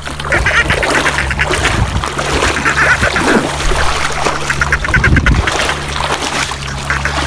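Feet splashing and churning through shallow river water as a child runs and wades, a quick, irregular run of splashes, over a steady low hum.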